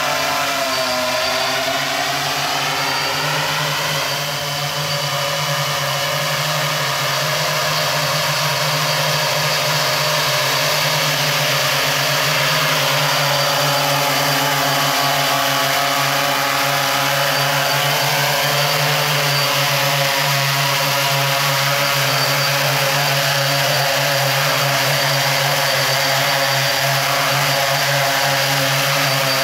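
Hexacopter's electric motors and propellers whirring as it descends and hovers low to land. The pitch of the whine slides up and down as the motor speeds change, rising over the first few seconds and shifting again about two-thirds of the way through.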